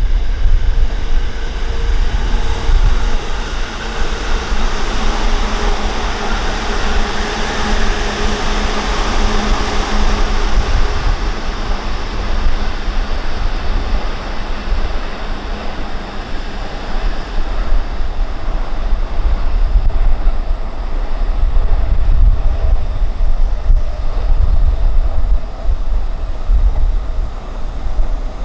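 A train passing: a broad rushing rumble swells over the first ten seconds or so and fades away, with a faint steady whine early on. Heavy wind noise buffets the microphone throughout.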